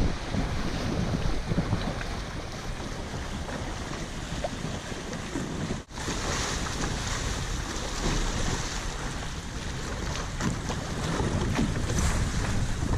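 Wind buffeting the microphone over the rush and slap of choppy water along the hulls of a Hobie catamaran sailing fast. A split-second gap breaks it about six seconds in.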